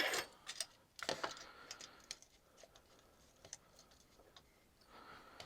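Scattered light clicks and taps, several in the first two seconds and then fewer: small measuring tools being handled while marking out the work.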